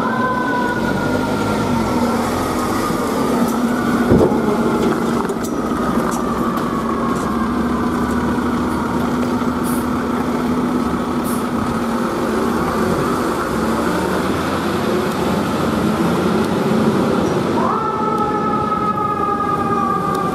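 Fire apparatus siren that sweeps up quickly and then slowly winds down in pitch, once at the start and again near the end, over the steady hum of the fire trucks' diesel engines. A single sharp knock sounds about four seconds in.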